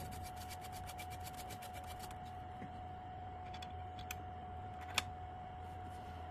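2m2tank CNC key cutting machine running faintly with a steady low hum and a steady mid-pitched tone, and fine regular ticking that fades away over the first two seconds. Two short sharp clicks come about four and five seconds in.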